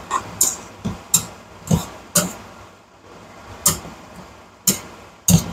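Spatula clacking and scraping against a nonstick wok as choy sum and broccoli are stir-fried: about eight or nine sharp, irregular strikes with a pause near the middle, over a faint steady hiss.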